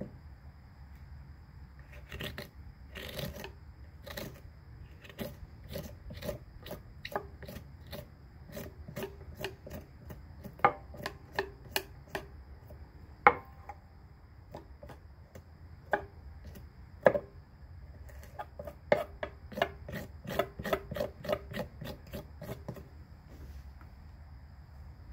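Kitchen knife blade scraping the spines off a prickly pear pad against a wooden cutting board: a long run of short, irregular scraping strokes with sharp clicks. It starts about two seconds in and stops near the end.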